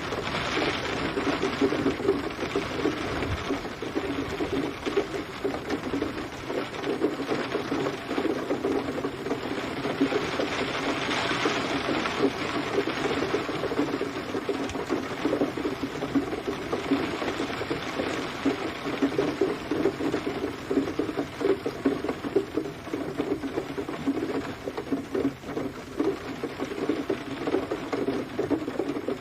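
Steady rain falling, a dense fast spatter of drops that keeps up without a break.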